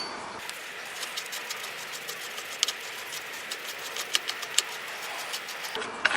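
Light metal clicks and ticks, irregular and a few a second, from a spanner turning the spindle of a cast bike pedal as it is unscrewed from the crank arm, over a steady hiss.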